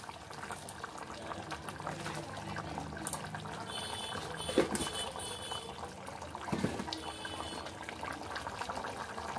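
Chicken curry simmering and bubbling in an aluminium pot, with a couple of light knocks from the pot or a container lid.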